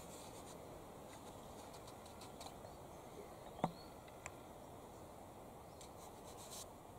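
Quiet bush ambience: a faint steady hiss with scattered soft rustles and ticks, and one short sharp click about halfway through.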